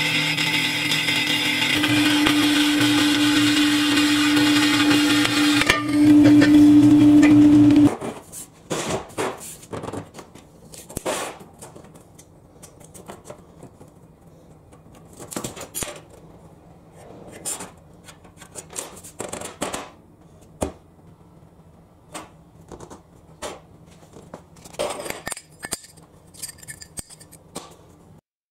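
Metal-cutting horizontal band saw running through square steel box-section tube, a steady whine over a low hum that gets louder about six seconds in and stops abruptly at about eight seconds. Then quieter scattered clicks and taps as a steel tape measure and marker are handled on a steel workbench.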